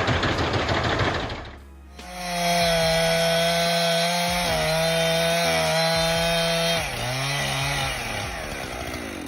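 Chainsaw running at high, steady speed, with a noisy cutting sound in the first second or so. Near the end its pitch drops and wavers lower as the throttle eases.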